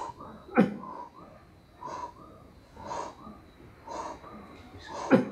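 Laboured, wheezing breathing of a man with silicosis on oxygen, about one breath a second, with two louder, sharper catches about half a second in and near the end.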